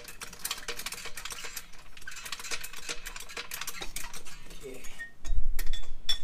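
Metal suspension parts and tools clinking and rattling as the front steering knuckle is handled and lifted toward a new upper control arm, with a louder, heavy low thudding for about a second near the end.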